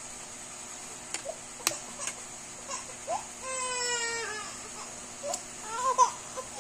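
A young child's voice: a few small clicks and mouth sounds, then about halfway through one drawn-out, closed-mouth hum that falls slightly at its end, and short vocal sounds near the end.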